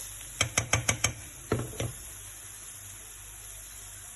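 Spoon or spatula tapping and scraping against a frying pan of sautéing onion and garlic: about seven quick clicks in the first two seconds, then only the steady hiss of frying oil.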